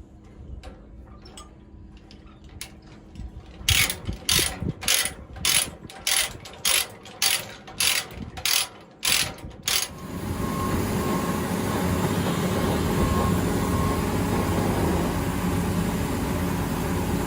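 Ratcheting chain load binder being cranked tight: a run of loud ratchet clicks, about two or three a second, for some six seconds, after fainter clicks. About ten seconds in, an engine starts running steadily.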